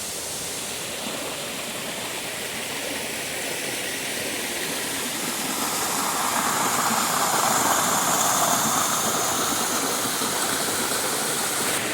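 Waterfall rushing, a steady noise of falling water that grows louder from about halfway through.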